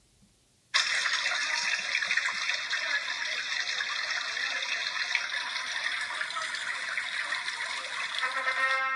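A video's soundtrack played at full volume through an iPhone 5s loudspeaker: a steady rushing noise starts abruptly about a second in, thin and without bass, and brass music comes in near the end.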